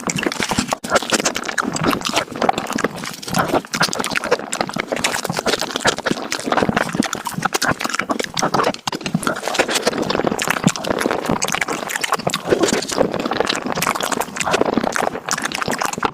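Close-miked eating of mango desserts, sped up: chewing, smacking and slurping packed into a dense, rapid run of quick clicks.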